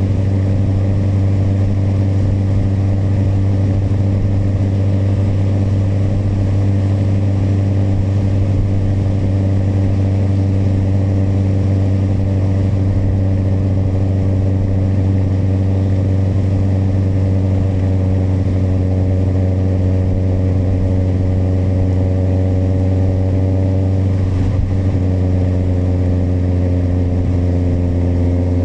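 Kawasaki motorcycle engine running on the road at a steady pace. Its note sags slowly, changes abruptly about three-quarters of the way through, then climbs again near the end.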